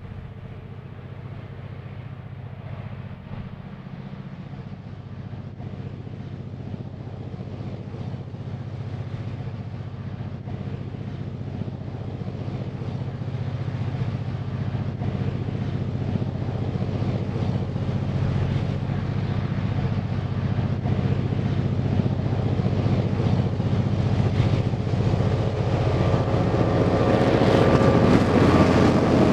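Victorian Railways Y-class diesel-electric locomotive's engine running under load as it approaches, a steady low drone that grows louder and is loudest as the locomotive passes close by near the end.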